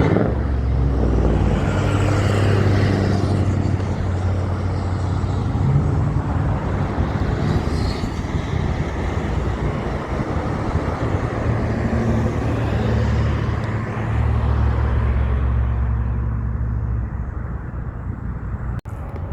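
Heavy trucks driving past with their engines running, a deep low drone that swells twice as they go by, over road noise. The sound cuts off abruptly near the end.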